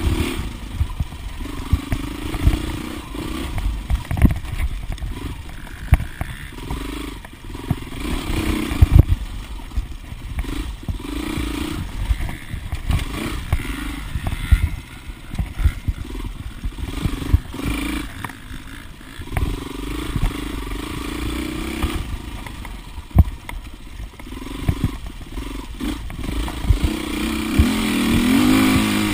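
2008 Husqvarna TXC 450's single-cylinder four-stroke engine being ridden hard off-road, the revs rising and falling as the throttle is opened and closed, with frequent knocks and rattles as the bike jolts over rough ground. Near the end the revs climb under a long pull.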